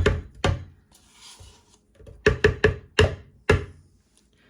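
Sharp knocks and taps as frozen orange juice concentrate is worked out of its can into a blender jar: two knocks at the start, then a quick run of about five more a couple of seconds later.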